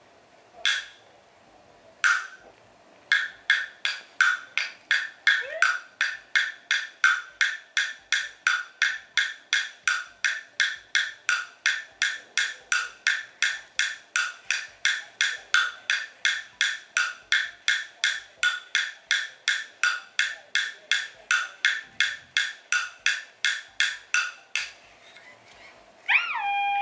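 Tubular wooden wood block struck with a wooden stick: a few spaced taps, then a steady beat of about two strikes a second that stops a couple of seconds before the end. Near the end an aibo robot dog gives a rising electronic chime, its sign of having danced well.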